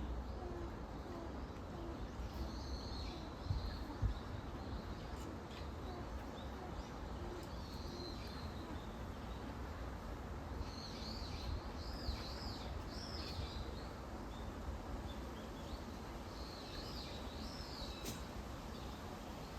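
North American porcupine calling: several bouts of high, wavering, squeaky calls, with a series of short low notes repeated during the first several seconds.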